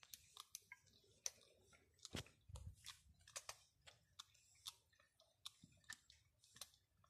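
A kitten chewing a piece of chicken: faint, irregular crunching and clicking of teeth, a few bites a second.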